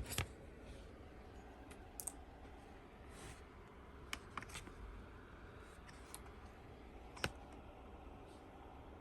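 Scattered sharp clicks and taps from handling a Toshiba Satellite C55 laptop while its power cable is plugged in and the power button is pressed. There are about five clicks, the loudest about seven seconds in, with quiet between them.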